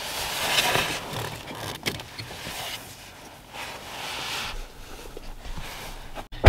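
Rustling and handling noise in a few short spells as the throttle pedal's wiring plug is worked loose under the dashboard.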